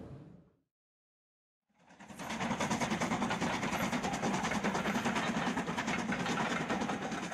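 A steam train running, with a fast, even pulsing beat. It fades in about two seconds in, after a brief silence.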